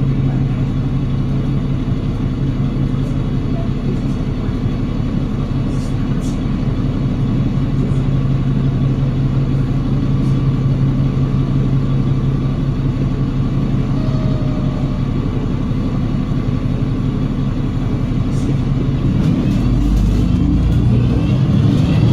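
Cummins L9 diesel engine and Voith automatic gearbox of an Enviro500 MMC double-decker bus heard from inside the cabin, running with a steady low hum. Near the end the engine picks up with a rising whine as the bus accelerates.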